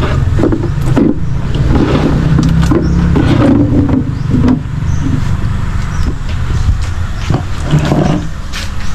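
A few knocks of a blue plastic drum's lid being pressed down and patted shut, over a steady low rumble.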